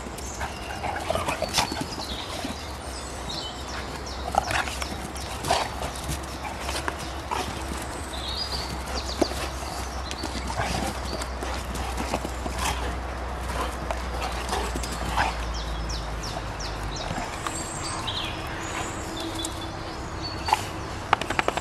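Two Dalmatians play-fighting on grass: scuffling and irregular thuds of their paws as they rear up and tussle.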